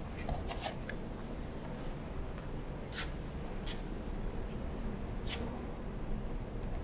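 Underground metro station ambience: a steady low rumble, with four sharp clicks spread through it.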